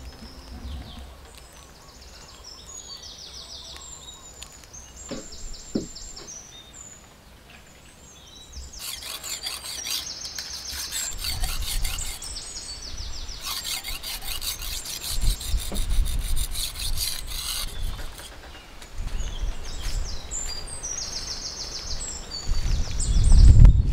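A knife blade being stroked back and forth on a whetstone: a long, even run of scraping strokes through the middle, with birds chirping before and after.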